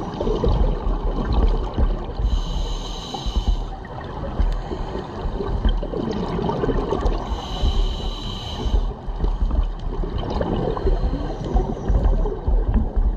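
Scuba diver breathing through a regulator, heard underwater: two hissing inhalations about five seconds apart, with the low rumble and gurgle of exhaled bubbles around them.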